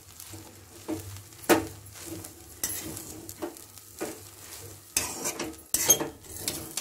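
Metal spatula stirring and scraping cooked vermicelli upma around a kadai, in irregular strokes about a second apart, the loudest scrape a little before the end.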